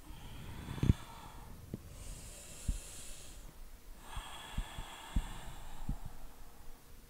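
A woman breathing audibly during a yoga transition into downward-facing dog: an out-breath, an in-breath, then a longer out-breath. Several soft thumps from her hands and feet shifting on the yoga mat, the strongest about a second in.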